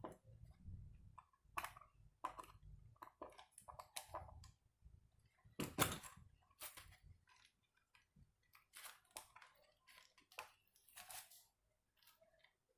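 Irregular small clicks, taps and scrapes of small parts being handled, with a louder knock about six seconds in.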